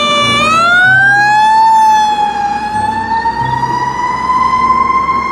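Fire engine siren wailing. Its pitch dips briefly, then climbs slowly and unevenly, over a low engine and traffic rumble.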